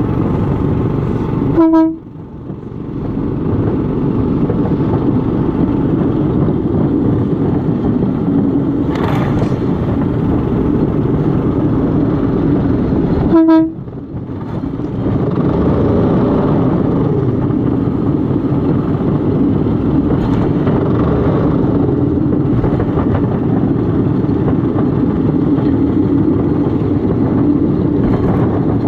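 Small motorized railcart running along rails with a steady engine and wheel noise. A short horn toot sounds twice, just under two seconds in and again about thirteen seconds in.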